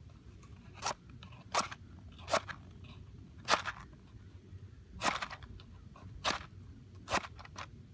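A wooden match scraped again and again along the striker strip on the side of a matchbox: about eight short, sharp scrapes at irregular intervals, roughly one a second.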